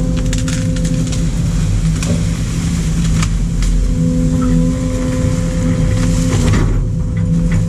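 Excavator's diesel engine running as it works an MDE Scorpion S1600 hydraulic grab, with a whine that comes and goes and scattered knocks and clatters.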